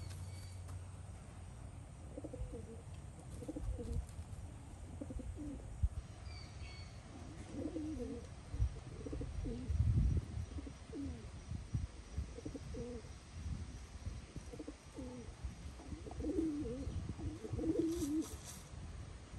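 Silkie chicken giving soft, low clucks and murmurs, a long string of short calls at irregular intervals. A small bird chirps faintly twice in the background.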